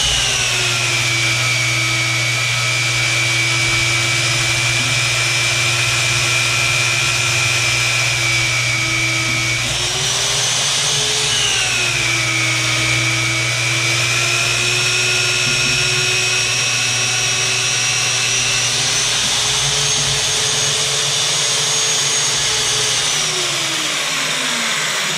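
Slugger magnetic drill's motor running under load as an annular cutter bores through steel plate, its whine dropping as the cutter bites, rising and dropping again about ten seconds in. Near the end the whine falls away as the drill slows down.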